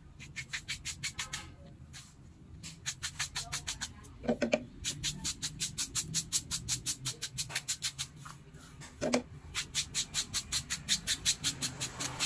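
A cloth glue dauber rubbed quickly back and forth over suede leather, a rapid scratchy scrubbing of about five to six strokes a second in several runs with short pauses. Twice in the pauses it gives a duller dab as it goes back into the glue.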